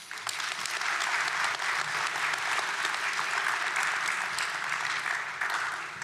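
Audience applauding, a crowd of many hands clapping steadily that starts to ease off near the end.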